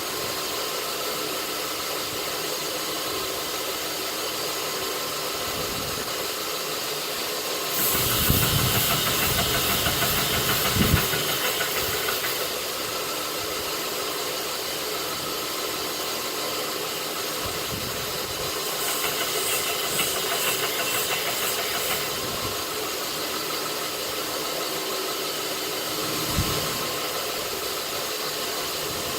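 North Ridge Tool knifemaker's belt grinder running steadily with a hiss and motor hum. Twice, from about 8 to 12 seconds in and again around 19 to 22 seconds, the sound gets louder and harsher as steel is pressed against the belt and ground.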